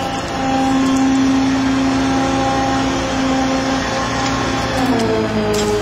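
Truck crane's engine running steadily while the boom hoists the climber, its pitch dropping slightly as it slows about five seconds in.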